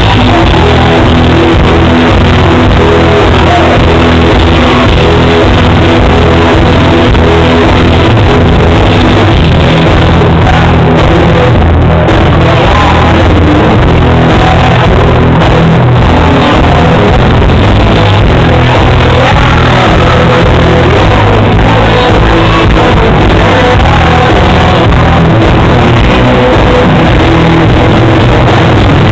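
Live country-rock band music, loud and unbroken, with electric guitar and fiddle over bass and drums. The recording is close to clipping and sounds dull and muffled.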